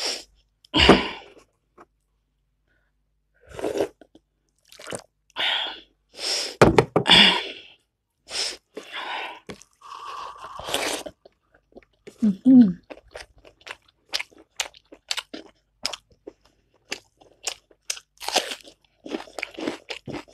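A person eating close to the microphone: irregular crunching and chewing, in clusters with short pauses.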